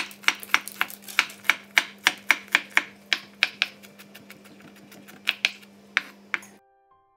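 A sharp chef's knife chopping garlic on a wooden cutting board: quick knocks of the blade on the board, about four a second for three and a half seconds, then a short pause and a few more chops before it stops. A faint steady low hum runs underneath.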